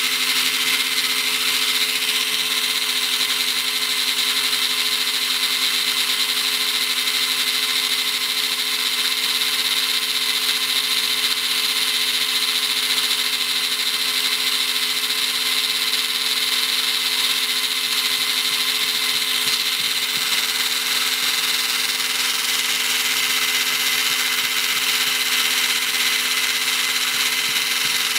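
Two coupled brushless RC motors spinning steadily, one driving and the other held under ESC braking load at about 150–180 watts. The sound is an even electric whine of a few held tones over a high hiss, with no change in speed.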